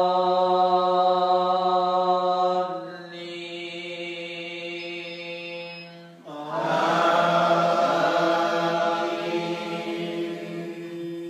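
An imam's chanted Quran recitation in Arabic, sung in long, drawn-out held notes. One phrase tapers off about three seconds in, and after a softer stretch a new, louder phrase begins a little past halfway.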